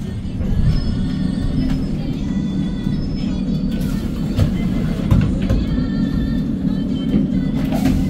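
Cabin of a 2021 Hyundai Green City city bus under way: steady low drone of its C6GB six-litre CNG engine with road and cabin noise, and a few light rattles. Music plays over it.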